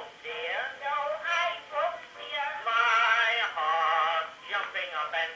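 Horn phonograph playing an early Edison record of a vocal duet: singing that sounds thin, with no bass.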